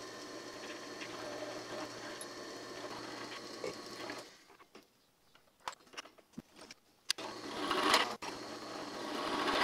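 Drill press motor running while its bit drills into a steel tube, cutting plug-weld holes. The drill stops about four seconds in, a few light clicks follow, and it starts again about three seconds later, getting louder as the bit cuts.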